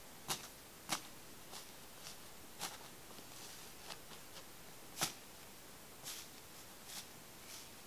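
Hardened, air-dried crust of glue-and-shaving-foam iceberg slime crackling as fingertips press into it and break it: separate sharp crunches about once a second, the loudest about five seconds in.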